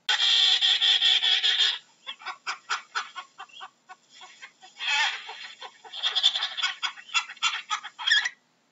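Penguin calling: a long drawn-out call, then a run of short quick notes, about five a second, with more long calls about five and six seconds in. It stops shortly before the end.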